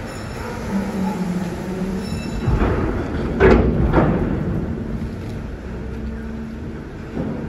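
Steady hum of a ferry's machinery, with a louder scraping, grinding noise that builds about a third of the way in and peaks in two sharp hits a half-second apart.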